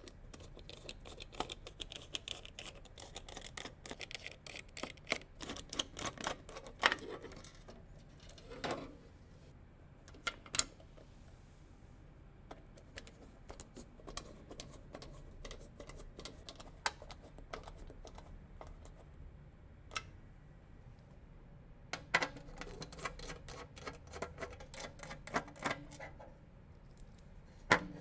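Clusters of rapid small clicks and ticks from computer parts and hardware being handled and fitted during a PC build, with a few sharper single knocks in between.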